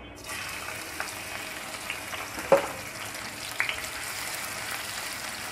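Sliced onions dropped into hot oil in a pan, sizzling steadily as they begin to fry. A few sharp clicks sound over the sizzle, the loudest about two and a half seconds in.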